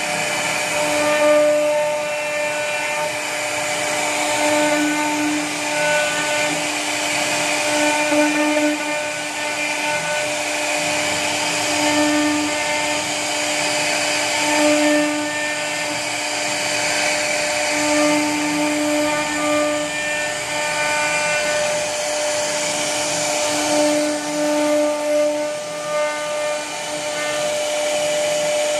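CNC router spindle running with a steady whine while its bit carves wood, the tone swelling and easing every second or two as the cut goes on, over the hiss of the cutting.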